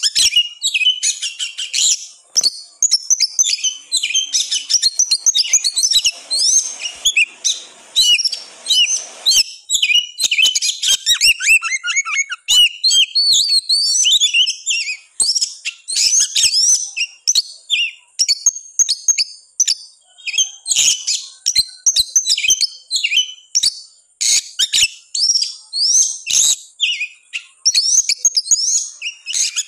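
Oriental magpie-robin (kacer) singing an insistent, agitated full song: a rapid, unbroken stream of varied whistles, trills and sharp clicking notes, with no pauses.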